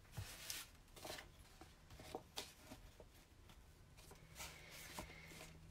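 Faint rustling and scraping with a few light taps: a hardcover book being shifted across a sheet of cloth and handled on a table.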